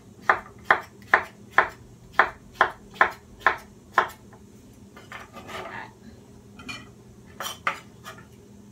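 Kitchen knife chopping cucumber on a wooden cutting board: about nine even strokes at a little over two a second, a short pause with soft scraping and handling, then two more quick cuts near the end.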